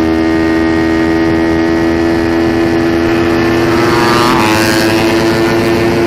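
Onboard sound of a Yamaha Mio 4V scooter with a 230cc engine, running steadily at race pace. About four seconds in, a second motorcycle's engine note rises and then falls away as it comes alongside.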